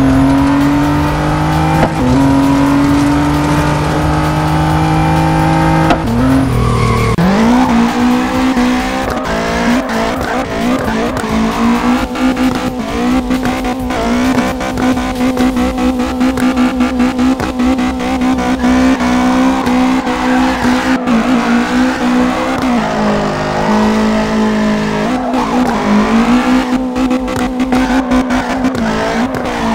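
Race car engine sound: a high revving engine note that holds mostly steady, with a few dips and rises in pitch.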